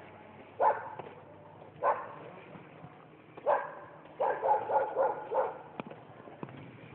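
A dog barking: three single barks a second or so apart, then a quick run of about six barks.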